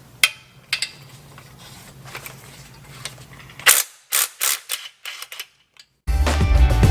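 Sharp metallic clicks and knocks from hand tools working on a car's exhaust headers, including a quick run of separate clicks. About six seconds in, loud background music with a heavy beat starts and takes over.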